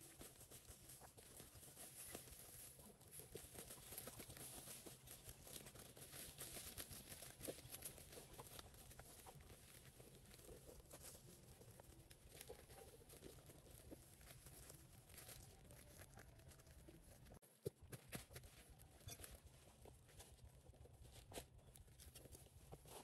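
Faint rustling with many small clicks and crackles. It cuts out briefly about seventeen seconds in, and a single sharp click follows.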